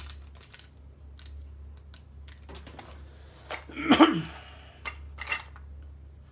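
Small antiques clicking and clattering as hands rummage through a wooden chest, with a louder clatter about four seconds in as a small case is lifted out. A faint low hum runs underneath.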